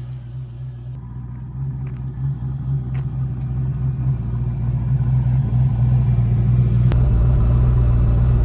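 Turbocharged 5.3 LS V8 in a Foxbody race car running at low speed after a pass, a steady low rumble that slowly grows louder and steps up about seven seconds in.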